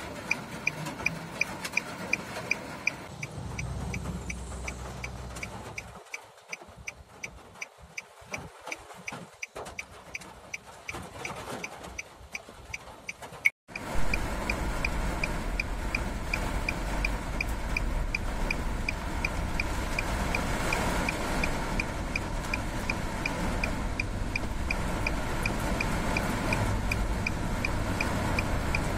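A car's hazard-light flasher ticking steadily, about two and a half ticks a second, inside the cabin while rain falls on the car. About halfway through, after a brief cut, the rain becomes a heavy downpour on the roof and windscreen, much louder and deeper, with the ticking still going.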